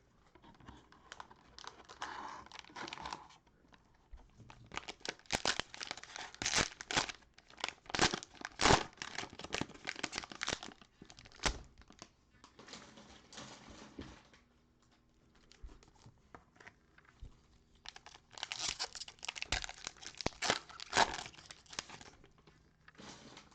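Cellophane wrapper of a trading-card cello pack being torn open and crinkled, in several spells of crackling with short quiet pauses between.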